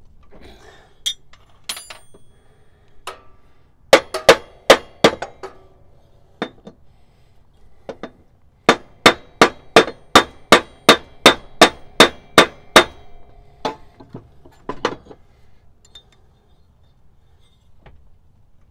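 Hammer tapping a steel taper-lock pulley, each strike ringing. There is a quick group of about five strikes, then a steady run of about ten at two or three a second, and a few more after. The taps help the tapered bushing break free while its bolts are cinched up.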